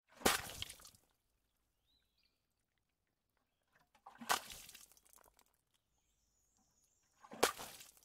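Water splashing onto cement: three separate splashes, about three to four seconds apart, each a sudden hit that trails off within a second.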